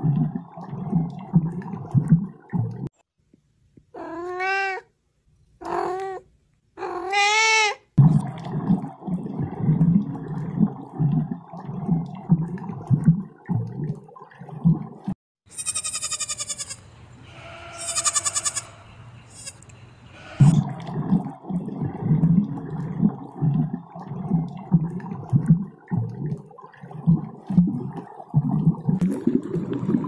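A goat kid bleating, a string of calls lasting about five seconds in the middle. About four seconds in come three short meow-like calls that rise and fall. Before, between and after them runs a low, irregular bubbling of water.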